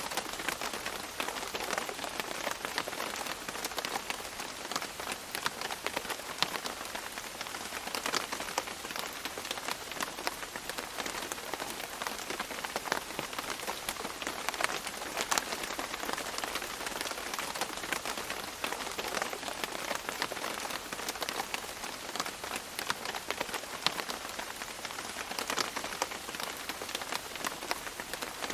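Steady tropical rain falling and dripping on leaves, a dense patter of drops with many sharper individual drip hits.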